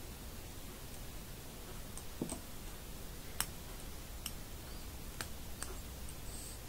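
A handful of light, scattered clicks as a plastic loom hook and rubber loom bands knock against the metal tines of two forks while the bands are lifted over them, over a faint steady hiss.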